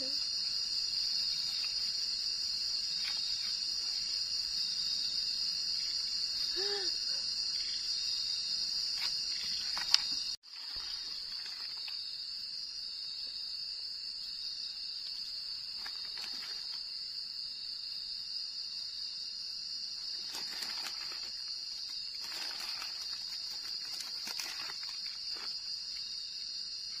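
A steady, high-pitched chorus of night crickets trilling without a break. About ten seconds in there is a click and a brief dropout, and a few faint clatters come in the later part.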